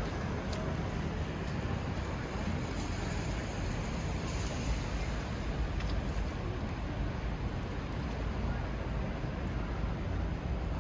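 Steady hiss of rain falling on wet city pavement, with a low rumble underneath and a few faint ticks.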